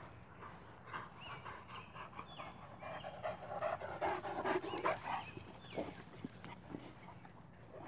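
A large dog panting close by, with soft irregular scuffs and a few brief high chirps.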